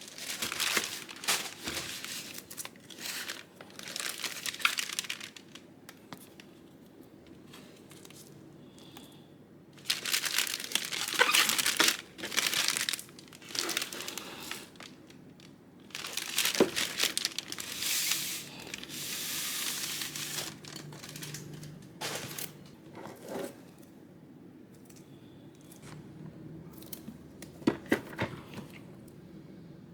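Packaging crinkling and being torn open in irregular bursts, with short pauses and a few handling clicks in between.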